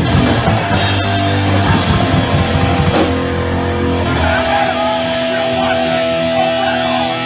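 Heavy metal band playing with distorted electric guitars and a drum kit. The full band plays hard at first, with a crash about three seconds in, then a held chord rings on.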